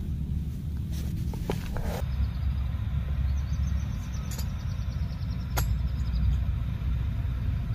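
Steady low outdoor rumble, with small camping gear being handled: a quick run of light ticks and two sharp clicks of metal parts in the middle.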